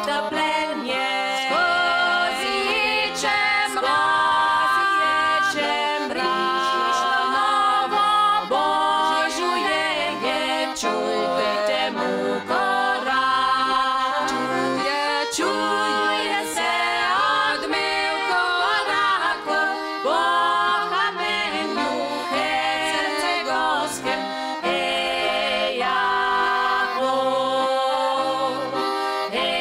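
Small women's vocal group singing a song in harmony, largely unaccompanied.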